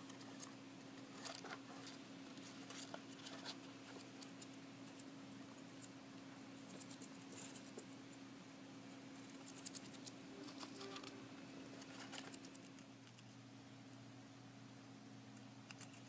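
Roborovski dwarf hamster scratching and scrabbling inside a cardboard hideout: faint scattered bursts of quick clicks and scratches, several short clusters in all.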